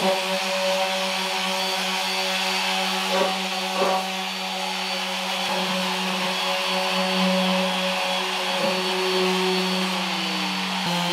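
Corded random orbital sander running steadily against a car's steel floor pan, with a steady hum. Two short knocks come about three and four seconds in, and the motor's pitch sags briefly near the end.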